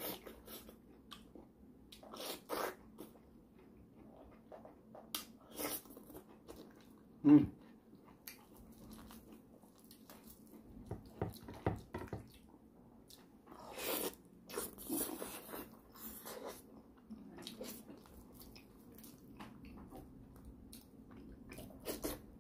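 Close-up eating sounds of a person chewing and biting pork leg meat off the bone and pineapple: wet chewing and lip smacks in scattered bursts, with one short louder sound about seven seconds in.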